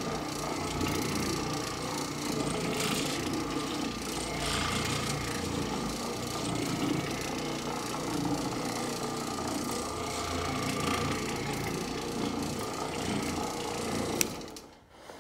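Oreck Orbiter orbital floor machine running on carpet: a steady motor hum with the pad scrubbing the pile. About fourteen seconds in it is switched off with a click, and the sound dies away.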